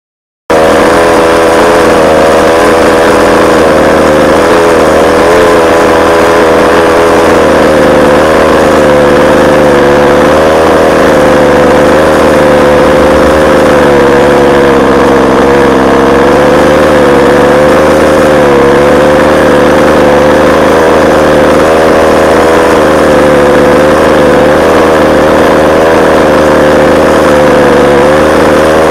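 Small two-stroke petrol engine of a 1/5-scale RC buggy, fitted with a finned MRCP cylinder head, idling loudly. Its speed wavers gently up and down, and it cuts in abruptly about half a second in.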